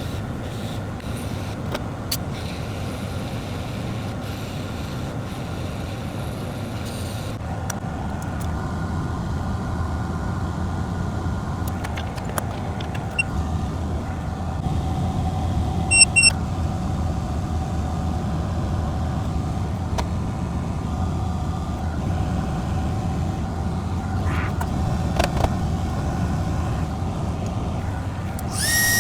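Steady rushing air from a hot air rework station used in microsoldering, while the reballed interposer layer of an iPhone logic board is soldered into place. A few short electronic beeps come about halfway through, and a high steady electronic tone starts near the end.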